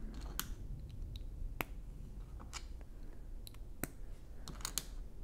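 Plastic Lego bricks and tiles clicking as pieces are pressed together and handled: a string of sharp, irregular clicks, several close together near the end.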